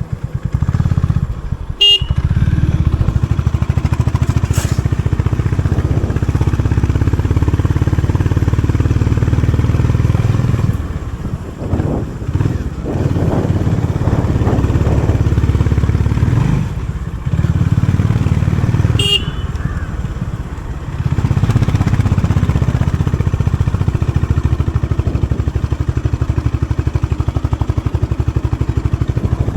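Honda CB350 RS motorcycle's single-cylinder engine running on its stock exhaust while riding. The note drops briefly a few times. Two short horn toots come near the start and about two-thirds of the way through.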